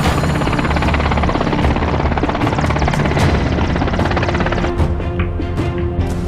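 Large military helicopter flying past with fast, steady rotor chop that thins out near the end, over a background music score.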